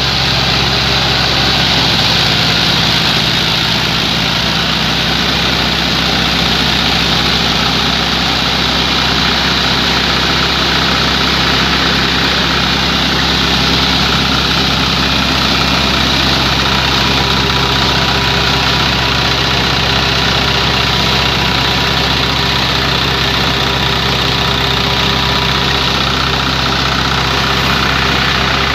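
New Holland Ghazi 65 hp tractor's engine running steadily under load as it drives a thresher through its PTO shaft, with the thresher's continuous rushing noise over the engine.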